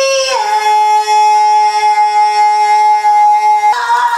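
A woman's long, loud scream held on one pitch, dipping slightly just after it begins and stepping up near the end.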